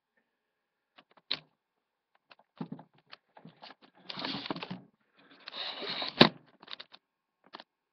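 Rustling and bumping right against a webcam's microphone as someone handles it at close range, with scattered clicks, two longer stretches of rustling, and one sharp knock about six seconds in.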